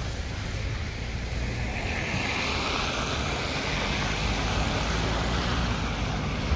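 Car tyres hissing on a wet, slushy road as a car passes, the hiss swelling and then fading over a few seconds, over a low rumble of wind on the microphone.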